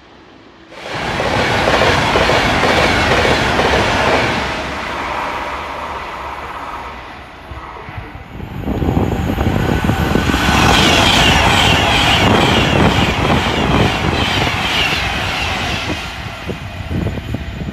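Trains running through the station at speed: a sudden loud rush of rail noise about a second in that eases off, then an Avanti West Coast Class 390 Pendolino electric train passing through from about nine seconds, with the rapid clatter of its wheels over the rail joints.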